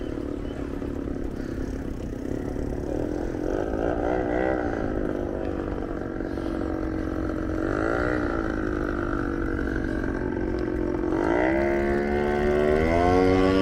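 Wind rumbling on the microphone of a moving bicycle, with a motor vehicle's engine droning under it. The engine's pitch wavers twice, then rises and grows louder near the end as it comes closer.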